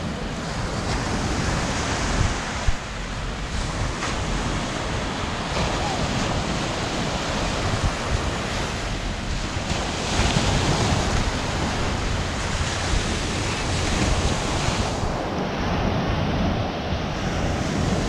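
Small surf waves washing onto a sandy beach, with gusty wind buffeting the microphone.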